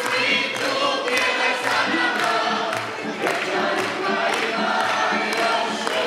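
Large mixed choir of children and adults singing a Šokac folk song together, with a boy's voice among the leads. A sharp beat falls about twice a second underneath the singing.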